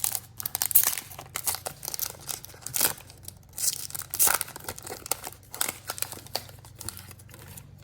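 A foil trading-card pack wrapper being torn open and crinkled in irregular rips and crackles.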